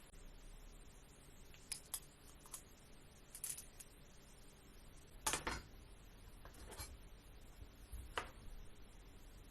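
A few scattered light clicks and short scrapes of kitchen utensils being handled, the loudest a quick cluster about five and a half seconds in.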